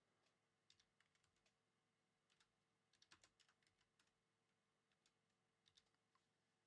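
Near silence with faint, irregular clicks of typing on a computer keyboard, in short clusters.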